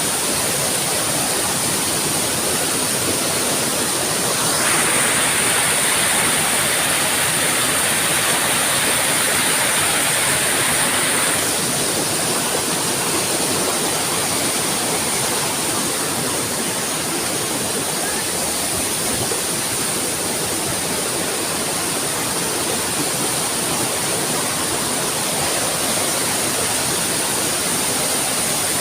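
Waterfall and river rushing: a steady, unbroken roar of falling water that turns brighter and a little louder for several seconds, starting about five seconds in.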